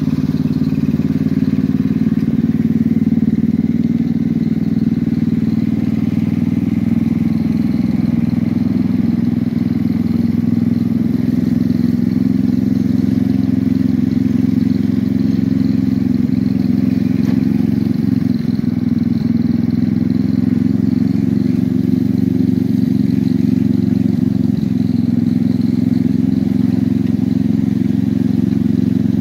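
Small engine of a ride-on miniature railway locomotive running steadily as it pulls the train along the track.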